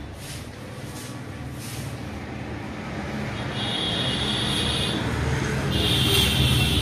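Motor vehicle and traffic noise: a steady low rumble that grows louder, with a high, rough sound twice in the second half.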